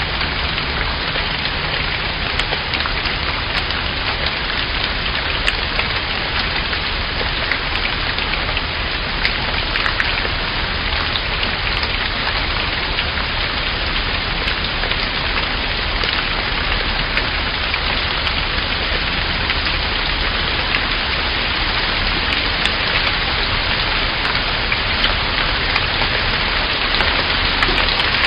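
Steady rain falling on a surface, a dense even hiss with scattered individual drops pattering through it.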